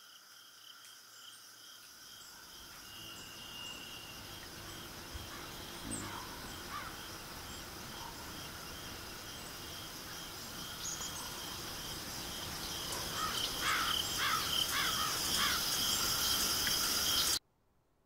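Crickets and other insects chirring in a steady pulsing rhythm, growing gradually louder, with a few short bird calls late on. The whole bed cuts off abruptly shortly before the end.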